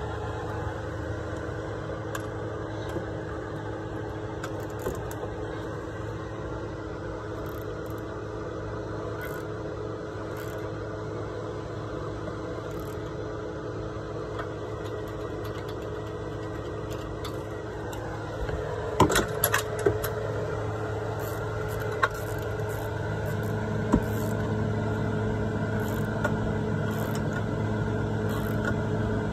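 A steady low mechanical hum, like a motor running nearby, under a few sharp metal clicks and knocks from a ratchet and socket working on the spark plugs. The clicks cluster about two-thirds of the way through, then come singly twice.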